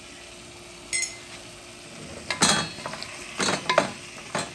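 A metal spoon clinks once against a metal pot about a second in, with a short ring. Then a wooden spatula stirs chicken pieces in the pot in three scraping strokes about a second apart.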